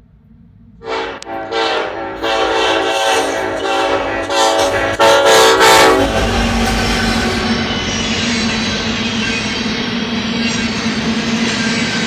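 Ferromex diesel locomotive's air horn sounding a series of blasts, a few short toots about a second in, then longer, louder blasts that cut off about six seconds in. The locomotive and freight cars then roll past with a steady rumble and clickety-clack of wheels on rail.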